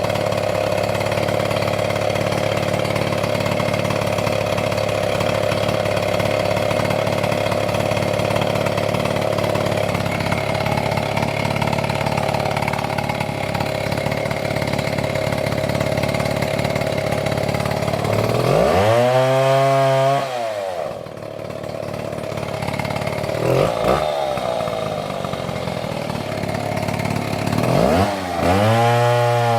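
Two-stroke Stihl chainsaw running at a steady high speed under load for most of the time, then revved up and dropped back about two thirds in, with a short throttle blip and another rev near the end.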